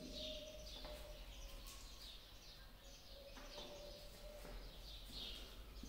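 Faint birds chirping repeatedly in the background, over a steady low hum.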